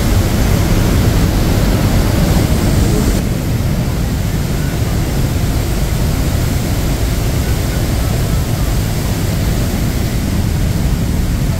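Heavy water of Niagara's Horseshoe Falls thundering, heard from the tunnel behind the falls: a loud, steady rush that is deepest in the low end.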